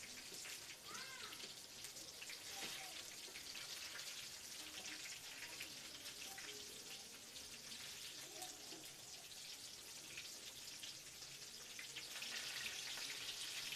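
Samosas deep-frying in a pan of hot oil: a faint, steady sizzle with fine crackling, getting a little louder near the end.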